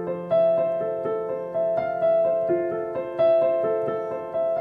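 Piano playing a slow F major 7 arpeggio (F, A, C, E) over a held low F. The notes ring into one another, with a fresh note struck about every second and a half.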